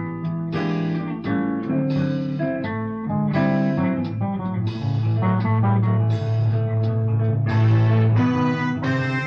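Blues band playing an instrumental passage, with guitar to the fore over bass guitar, keyboards and a steady drum beat.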